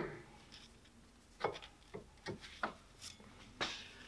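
Brake pad being worked into the caliper bracket's metal shims on a car's front brake: a series of about six light clicks and scrapes of metal on metal, starting about a second and a half in.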